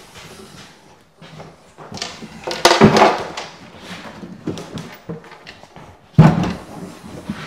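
Wooden kitchen base cabinet being shoved and knocked into place against stud framing: a few knocks and a short scrape about three seconds in, lighter knocks, then a sharp thunk about six seconds in.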